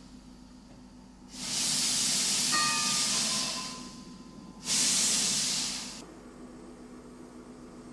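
Narrow-gauge steam locomotive blowing steam from its cylinder drain cocks: two loud hisses, the first about two and a half seconds long starting a second in, the second shorter and cut off sharply, over a steady low hum.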